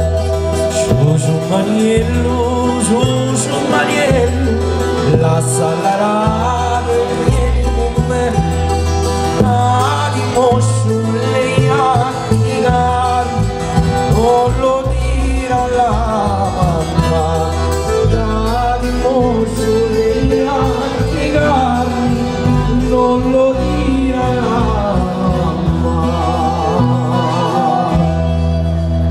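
A pizzica folk band playing live: a male voice singing over accordion, plucked strings and electric bass.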